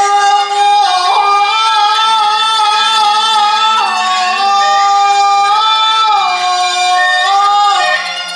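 Peking opera singing: a high voice holding long, drawn-out notes joined by short slides, the line stepping down near the end.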